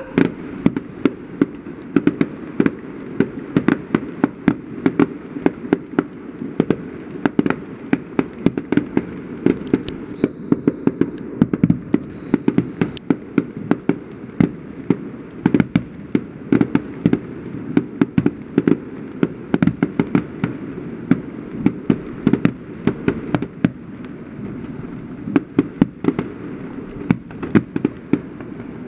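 Aerial fireworks display: shells bursting overhead in a rapid, unbroken series of sharp bangs, several a second.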